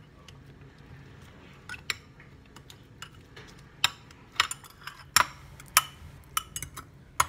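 Metal fork mashing banana in a glass bowl, the fork clinking irregularly against the glass; the clinks grow louder and more frequent from about two seconds in.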